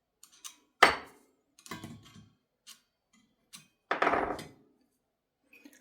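Sharp clicks and knocks of metal parts being handled while a stainless bolt is threaded by hand into the heating-element flange of an espresso machine's boiler. The loudest is a single sharp knock about a second in, and a longer scraping knock comes about four seconds in.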